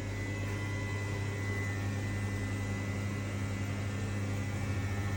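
Dynamic balancing machine spinning a bare Honda B20B crankshaft, without flywheel or pulley, to measure its unbalance. A steady low hum with a faint high whine, starting to pulse slightly near the end.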